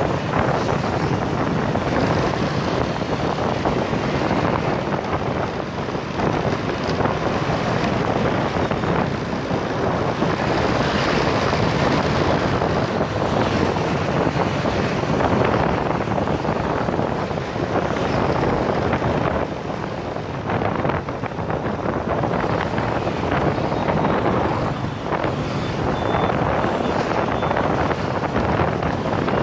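Steady wind rush on the microphone of a moving motorbike, over the running engines of the surrounding motorbike and scooter traffic.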